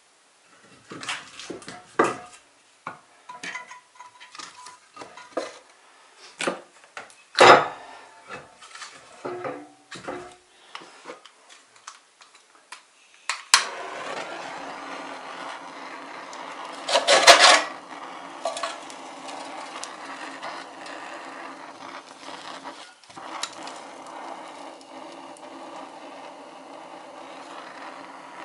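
Firewood knocking and clattering against a small iron wood stove as it is loaded. About halfway through, a handheld gas torch starts with a steady hiss and keeps burning to light the damp kindling, with one louder burst a few seconds after it starts.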